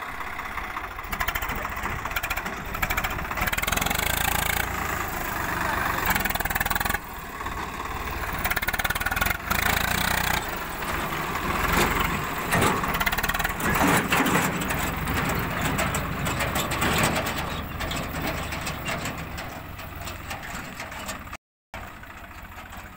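Swaraj tractor's three-cylinder diesel engine running hard as the tractor tries to drive its trailer out of mud. The sound is continuous, with a couple of sudden breaks.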